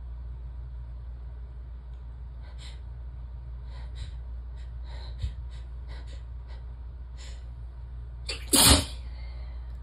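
A woman's sneezing fit: a run of short, sharp catching breaths builds up over several seconds, then one loud, full sneeze comes out about eight and a half seconds in. A steady low hum sits underneath.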